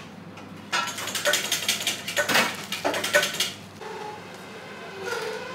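A rapid rattling run of clicks, loud, starting under a second in and lasting about three seconds, then dying down.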